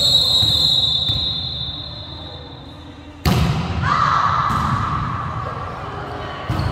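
A referee's whistle held in one long, steady, high blast for about three seconds, then cut off. Right after it comes a sharp knock, and a lower sustained tone starts a moment later.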